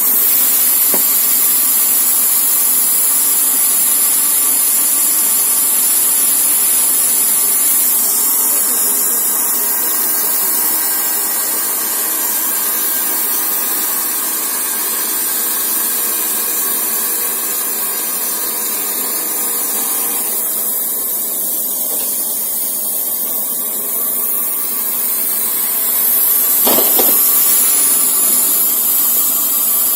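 Wood-Mizer LT40 Super Hydraulic band sawmill running, its band blade cutting through a log with a steady sawing noise that grows a little louder near the end.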